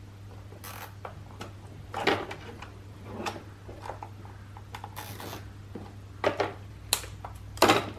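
Hands handling a coiled plastic cable and cable ties against a metal seat base: a string of brief rubs and clicks, the loudest near the end, over a steady low hum.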